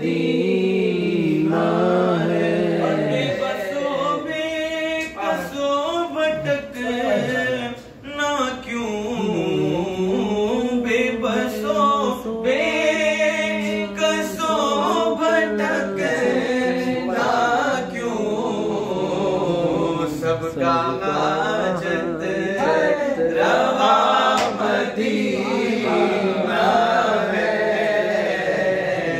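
Men's voices singing a naat unaccompanied: a lead voice holds long, wavering melodic lines over a steady low drone.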